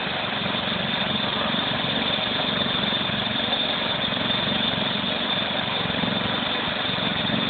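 Tractor engine running steadily while towing a train of small wagons.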